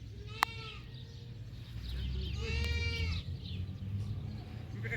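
A sharp click about half a second in, then one long bleat from livestock about two and a half seconds in, over a steady low rumble.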